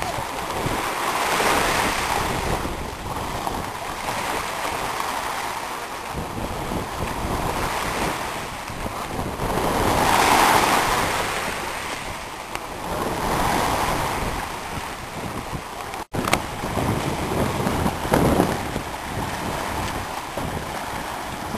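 Sea waves washing onto the beach, swelling and fading every few seconds, with wind on the microphone. The sound cuts out for an instant about three-quarters of the way through.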